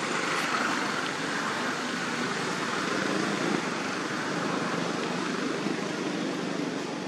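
Steady rushing background noise with no distinct calls.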